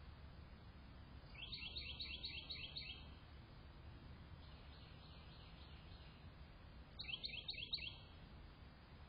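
A bird calling in two bouts of quick, high repeated chirps, about four a second: six or so notes near the start and four more near the end, over a low steady background hiss.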